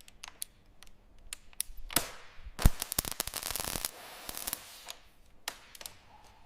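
A string of sharp clicks and knocks from parts being handled, with one heavy clunk about two and a half seconds in followed by about a second of rustling, scraping noise.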